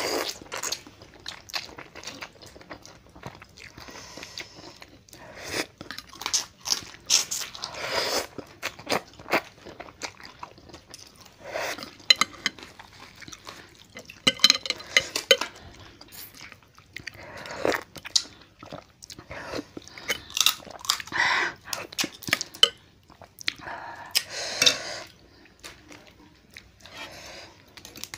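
Close-miked eating of crab with instant noodles: crab shells crunched and bitten, chewing, and noodles slurped, in irregular short bursts.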